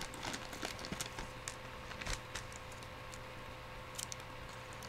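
Faint, irregular light clicks and taps, as from hands handling small objects near the microphone, over a steady low hum.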